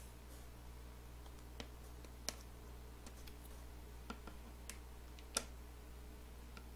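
Scattered small clicks and ticks of a screwdriver and an iPhone 6's display and frame as the phone is opened by hand, the two sharpest about two and a half and five and a half seconds in, over a low steady hum.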